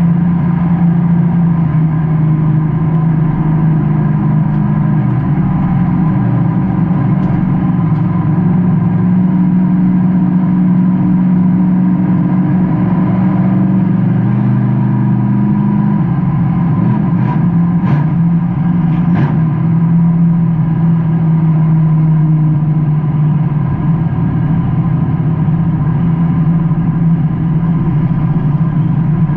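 Race car engine heard loud from inside the cockpit, running hard under sustained throttle, its pitch stepping down and back up briefly about halfway through. A few short clicks or knocks sound a few seconds later.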